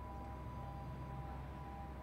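Steady machine hum: a low rumble with three constant tones above it, unchanging throughout.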